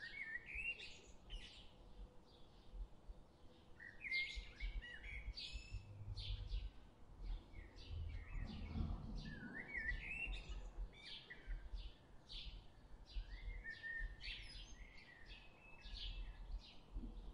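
Small birds chirping and twittering: many short, quick calls one after another, over a faint low rumble.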